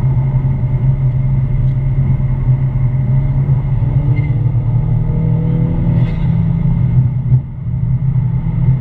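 Ford Mustang EcoBoost's turbocharged 2.3-litre four-cylinder running with a steady low hum, the weird noise its owner was recording. The hum briefly drops away about seven seconds in, then returns.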